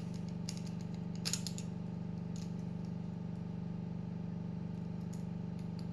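Lock pick working in the keyway of an Abus 24/70 disc padlock: a few scattered light metallic clicks, the sharpest about a second in, over a steady low hum.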